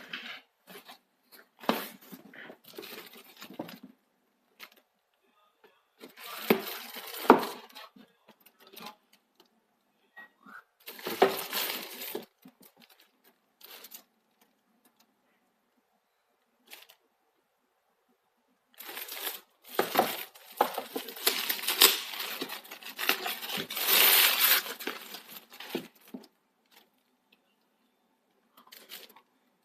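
Packaging for a table tennis blade being handled and torn open in irregular bursts of rustling and tearing, with short pauses between; the longest and loudest stretch comes about two-thirds of the way through.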